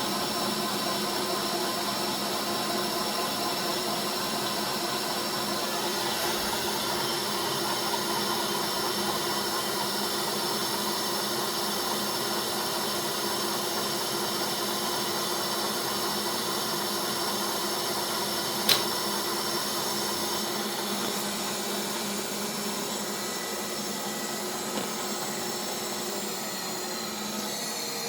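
A machine tool's motor running steadily with a whine of several fixed tones. There is a single sharp click about two-thirds of the way through, and near the end some of the higher tones slide downward as the sound eases off slightly.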